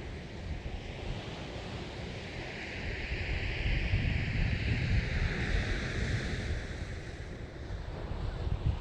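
Sea waves washing, with a swell of hiss building and fading over a few seconds midway, over a low rumble of wind buffeting the microphone.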